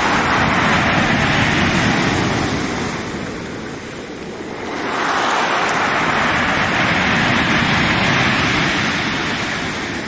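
Heavy storm surf breaking and washing up a pebble beach, a loud continuous rush of foaming water. It eases about four seconds in and swells again with the next wave a second later.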